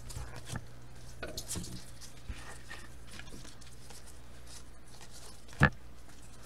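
Faint rustling and light clicks of a stack of trading cards being handled and flipped in gloved hands, with one sharp knock a little past five seconds in, over a low steady hum.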